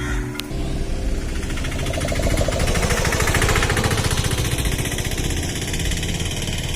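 An engine running steadily with a fast, even pulsing knock.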